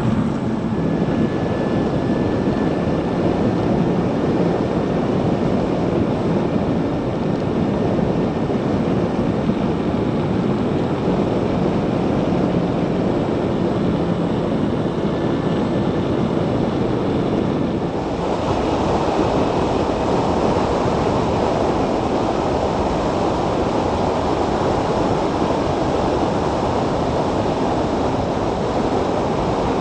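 Wind rushing over the microphone and road noise from a Zero DSR electric motorcycle riding at speed, as a steady loud rush with a faint high whine now and then. About two-thirds of the way through, the rush becomes brighter and fuller.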